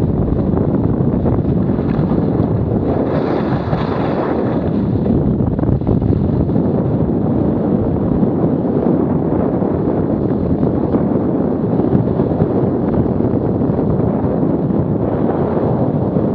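Steady wind rushing over an action camera's microphone while skiing downhill, mixed with skis hissing and scraping over packed snow; a little brighter scraping about three to five seconds in.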